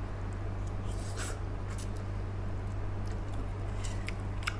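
Soft mouth noises of someone eating a mouthful of instant noodles, a few short faint sounds spaced apart, over a steady low hum.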